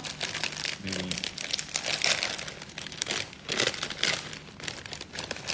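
Plastic bag of kap moo (Thai crispy pork cracklings) crinkling and rustling as it is handled and opened.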